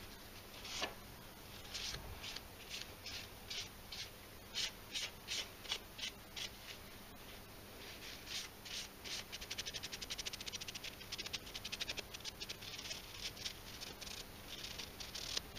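Paper towel rubbing boiled linseed oil into a small hardwood block. The first half is separate wiping strokes about twice a second, then faster back-and-forth rubbing from about halfway through.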